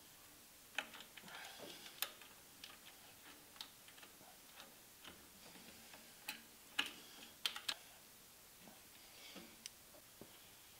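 Faint, irregular small clicks and taps of insulated wires being handled and pushed into the terminals of a magnetic motor starter in its plastic enclosure, with the sharpest clicks around two seconds in and in a cluster around seven seconds in.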